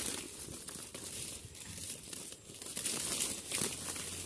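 Mango leaves rustling and crinkling as a hand pushes through the foliage and handles a branch close to the microphone, over a faint steady high hiss.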